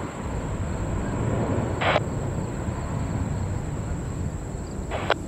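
Steady low rumble of distant jet airliner engines, with two brief bursts of airband radio squelch about three seconds apart.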